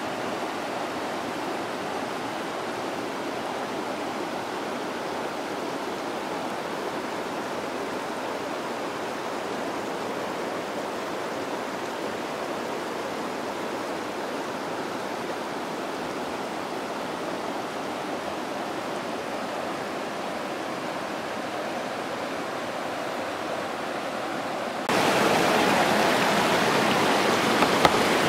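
Steady rushing of running water, even and unbroken; about 25 seconds in it jumps abruptly louder and brighter.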